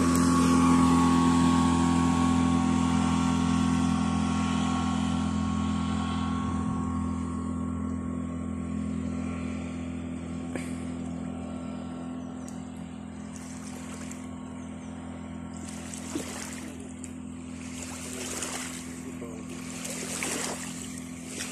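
Motorboat engine running at a steady pitch, gradually fading. Near the end come several bursts of water washing and splashing.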